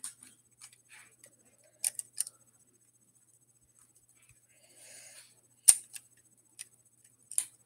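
Plastic Lego pieces being handled and snapped together: a few sharp clicks and taps, the loudest a little under six seconds in, with a brief rustle just before it.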